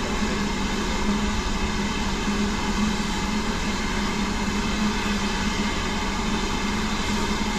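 BR Standard Class 9F steam locomotive standing in steam: a steady hiss with a low steady hum beneath it.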